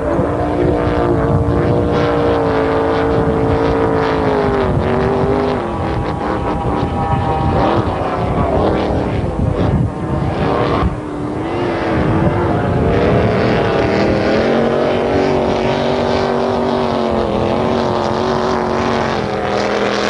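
Supercharged racing powerboat engines running hard, the note rising and falling as the boats pass. From about two thirds of the way in, two engines are heard at once at different pitches.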